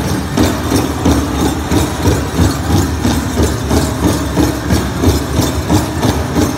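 Powwow drum beaten in a steady, even rhythm of about three beats a second, driving the grass dance.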